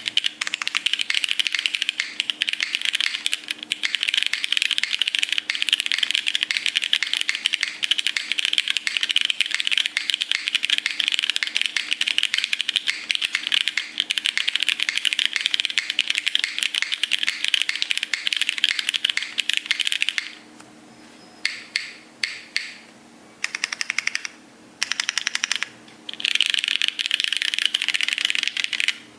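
Fast typing on a Leviatán R1 Grey keyboard, a dense run of key clicks. About two-thirds of the way in it breaks into a few short bursts with pauses, then runs fast again and stops suddenly at the end.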